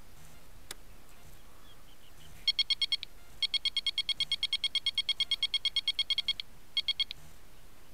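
Electronic bite alarm on a fishing rod pod beeping rapidly, about seven beeps a second, in three runs: a short one, a long one of about three seconds, and a short one near the end. This is the signal of line being pulled over the alarm's sensor, as when a fish takes the bait.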